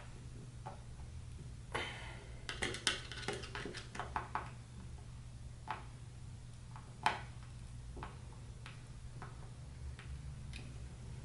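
Light metal clicks and taps from steel hairpin legs and screws being handled and screwed onto a table panel: a cluster about two to four seconds in, then single clicks now and then. A steady low hum runs underneath.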